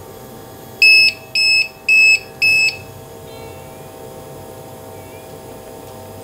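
APC online UPS alarm beeping four short times in quick succession, one steady high pitch, the alert pattern the UPS gives while running on battery. A steady electrical hum runs underneath.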